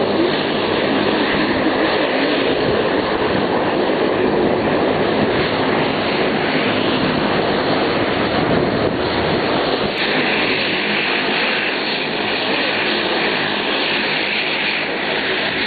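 Aircraft engine noise, loud and steady, changing abruptly about ten seconds in to a hissier sound.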